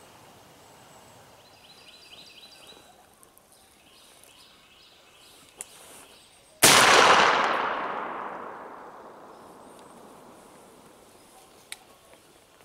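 A single gunshot about halfway through, sudden and loud, its report echoing and dying away over three or four seconds. Faint high bird chirps come a little earlier.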